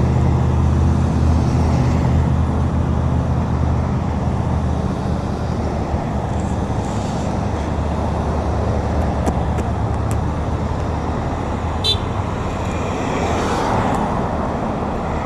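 Road traffic at an intersection: car engines running and vehicles passing in a steady wash of noise, with wind rumbling on the microphone.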